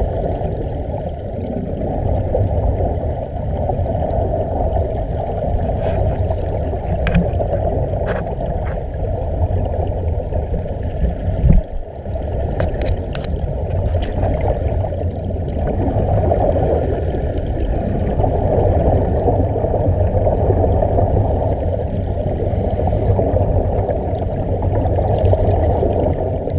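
Steady, muffled underwater rush and gurgle of air bubbling out of surface-supplied diving helmets, heard through a waterproof camera housing, with a few faint clicks.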